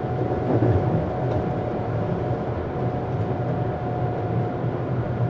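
Tokyu 7700 series electric train running, heard from inside a motor car: a steady rumble with a low hum and a thin steady whine above it.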